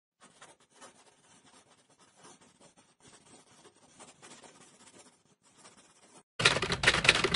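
Faint, irregular scratching, then about six seconds in a much louder, dense burst of noise that lasts just over a second.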